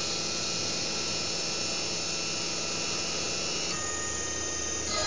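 CNC hot wire foam cutting machine running as it cuts an EPS foam block: a steady mechanical hum with several high whining tones, the tone changing slightly about three and a half seconds in.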